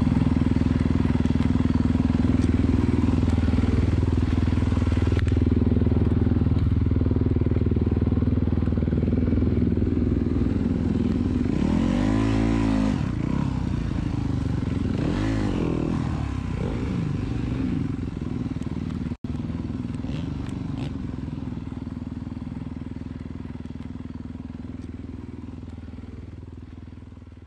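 Dirt bike engine running steadily, with two short rev rises and falls about twelve and fifteen seconds in. The sound gradually fades away toward the end.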